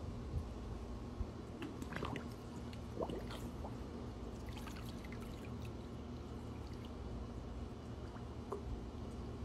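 Faint, scattered drips and small splashes of pool water around two golden retrievers standing in a swimming pool, over a steady low hum.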